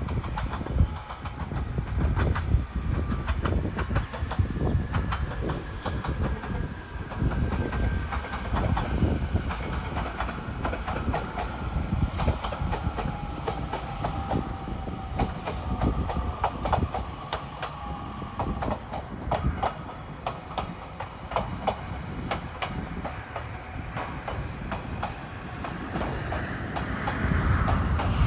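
EV-E801 series 'ACCUM' battery electric train running past, its wheels clicking rapidly over the rail joints, with a faint whine that slowly falls in pitch.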